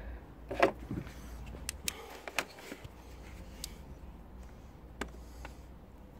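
Scattered sharp clicks and light knocks of objects being handled, with a louder short knock about half a second in, over a faint steady hum.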